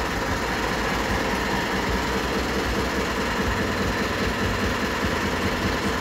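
Steady truck engine idling sound, an even rumble with fast knocking in the low end, for a homemade remote-control pickup truck standing still.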